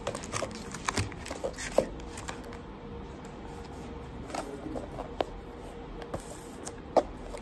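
Hands handling a glasses case and its plastic wrapping: scattered small clicks, taps and rustles, the sharpest about five and seven seconds in, over a faint steady hum.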